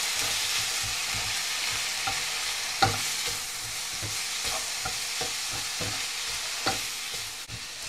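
Shredded dried tuna thokku sizzling in a non-stick frying pan as it is stirred with a wooden spatula. The spatula scrapes through the mix and knocks lightly against the pan a few times.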